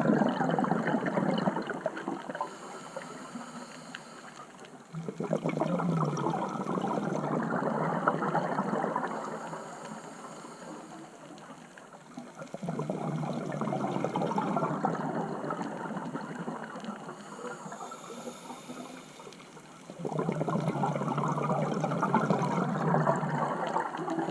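Scuba diver breathing through a regulator, heard underwater: four long rushes of exhaled bubbles, one every seven or eight seconds, with a faint hiss of inhaling in the quieter gaps between them.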